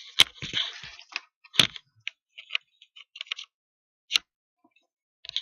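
A few sharp clicks with light rustling between them: hands handling a small homemade Arduino alarm and its parts.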